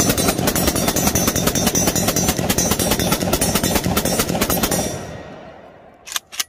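Zastava ZPAP M70 AK-pattern rifle in 7.62×39mm firing a fast string of semi-automatic shots, several a second. The firing stops about five seconds in and the echo fades. Two sharp clicks follow near the end.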